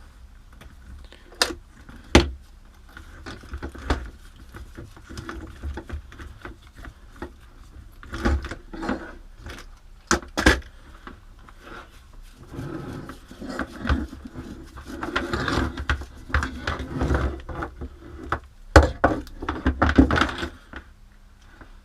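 Plastic and metal parts of a rotary tool's extension attachment being handled and screwed together: scattered sharp clicks and knocks with scraping and rubbing in between.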